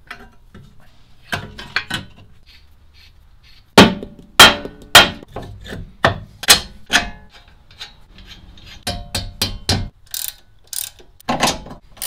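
Sharp knocks and clanks of steering-knuckle and suspension parts being fitted back together, loudest about four to seven seconds in, followed near the end by lighter quick clicks of a ratchet wrench on the knuckle bolts.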